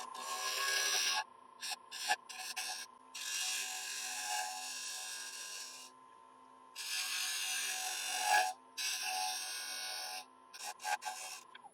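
Wood lathe running with a steady whine while a turning tool cuts the rim of a spinning iroko bowl, rounding the edge over. The cut comes as three long hissing scrapes with short breaks between.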